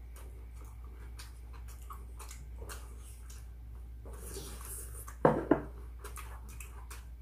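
Close-mic mukbang eating sounds: chewing with small clicks of chopsticks against bowls, and a sharp double knock about five seconds in as a rice bowl is set down on the table.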